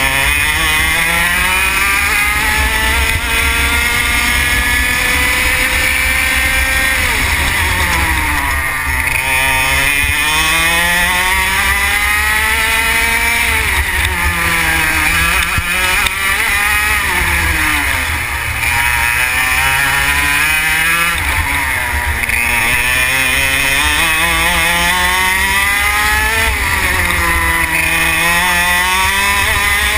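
Onboard sound of a racing kart's engine at full throttle, its pitch climbing steadily along the straights and falling off sharply under braking for the corners, again and again over the lap. A steady low rumble runs underneath.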